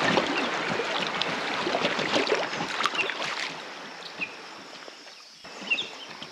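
Water splashing and rippling around an inflatable packraft being paddled over river shallows, fading over the last few seconds.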